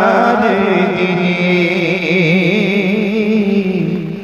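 A man singing a long, drawn-out phrase of Punjabi devotional verse into a microphone. His held notes waver and turn, and the phrase fades near the end.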